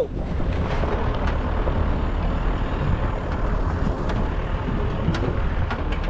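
Motor vehicle driving along a rough off-road track: its engine runs steadily and scattered knocks and rattles come through, heard from on board.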